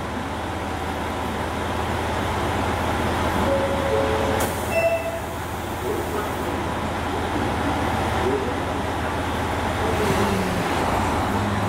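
KiHa 200 series diesel railcar standing at the platform with its engine idling: a steady low hum, with a short hiss lasting about two seconds that comes in about four and a half seconds in.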